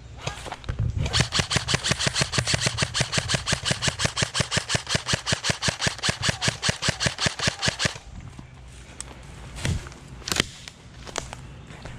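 Airsoft rifle firing a steady stream of shots, about six a second, for around seven seconds, then a few single shots near the end.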